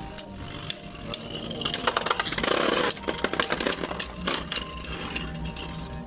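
Two Beyblade Burst spinning tops, Takara Tomy Revive Phoenix and a second top, whirring steadily on a plastic stadium floor, with repeated sharp clicks as they clash. A louder grinding scrape comes about two and a half seconds in.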